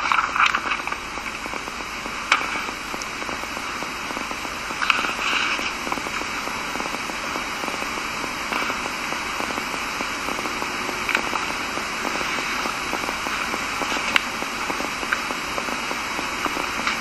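Steady background hiss of the lecture recording with scattered sharp clicks and crackles, about half a dozen spread across the pause.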